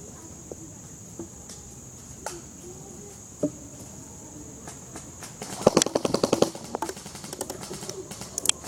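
Airsoft gunfire: a few scattered single clicks, then a rapid burst of about a second of fast sharp cracks about halfway through.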